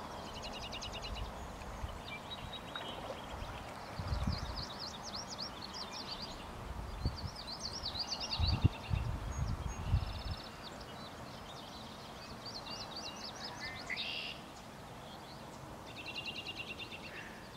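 Songbirds singing repeated high trills and chirps, phrase after phrase, over a steady outdoor hiss. Irregular low rumbles come and go, loudest about halfway through.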